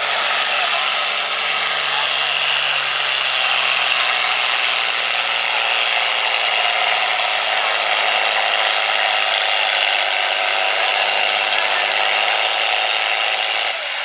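John Deere farm stock tractor's diesel engine running flat out under heavy load while pulling a weight-transfer sled, a loud, steady, rasping roar with a faint low drone underneath.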